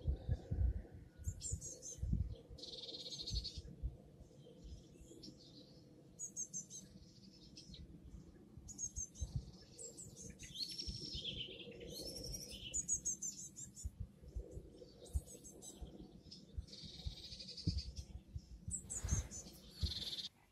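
Birds chirping and singing in short repeated phrases, over an irregular low rumble with occasional knocks.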